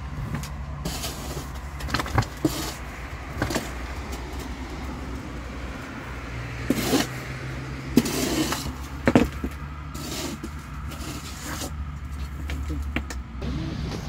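A shovel digging into a pile of soil and dirt being tipped into a grave, several separate strokes a second or two apart. Under them runs a steady low engine hum.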